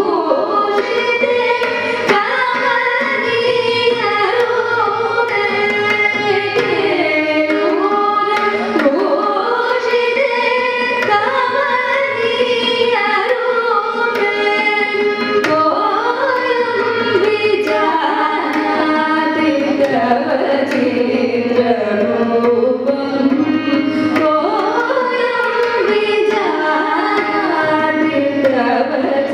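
Carnatic vocal music: women singing a melodic line, accompanied by violin and mridangam drum strokes.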